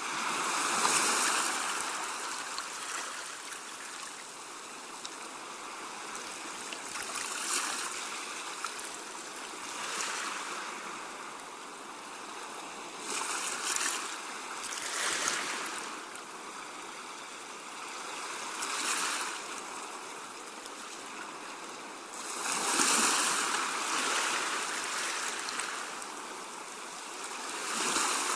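Sea waves washing up a shore: a steady hiss of water that swells with each wave every few seconds, with the biggest surges about a second in and about three-quarters of the way through.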